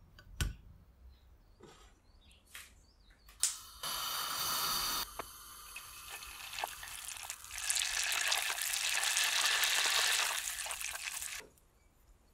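Butter sizzling in a stainless steel saucepan as it melts and foams on its way to browning, a steady hiss heard in two stretches, the longer and louder one in the second half. A dull thud about half a second in as the block of butter goes into the pan.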